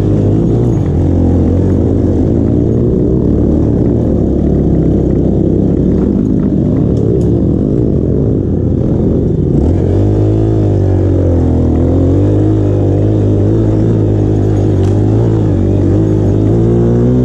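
Dirt bike engine running under changing throttle while climbing a rough trail. About ten seconds in, the note settles into a clearer pitch that rises and falls with the throttle.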